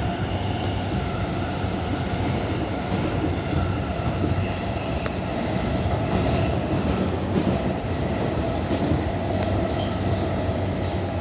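R142 subway car running through a tunnel, heard from inside the car: a steady noise of wheels on rail with faint high tones and a few light clicks.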